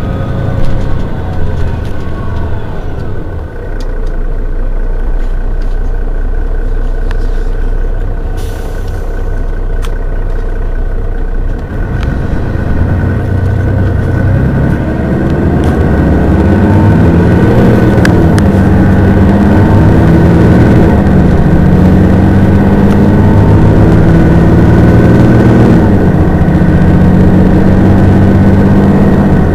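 Mercedes-Benz Citaro city bus diesel engine running steadily, then accelerating hard at full throttle (kickdown) about twelve seconds in. The engine note climbs and drops back several times as the automatic gearbox shifts up.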